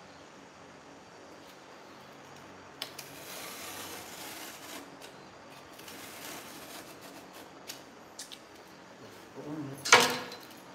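Utility knife drawn along a straightedge, slicing through cardboard in two scraping strokes, with a few light clicks and a loud sharp knock near the end.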